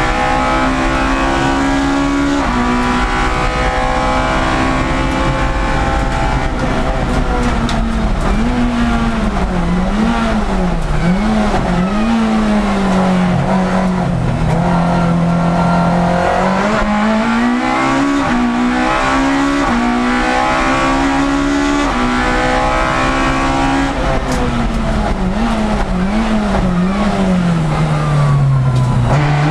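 Citroën Saxo 1.6 hill-climb race car's four-cylinder engine heard from inside the cabin, revving hard and pulling up through the gears with sudden pitch steps at the shifts and quick dips and rises as the throttle is lifted and blipped through bends. Near the end the pitch falls steadily as the car slows.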